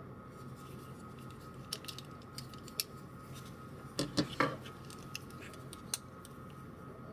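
Folding knife being handled: light metallic clicks, then a quick run of louder clicks about four seconds in, and one more click shortly after.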